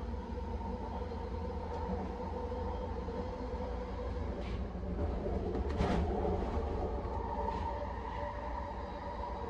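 Vancouver SkyTrain metro car running along the elevated guideway, heard from inside at the front: a steady low rumble with a constant hum. About six seconds in a brief louder rush swells up and fades.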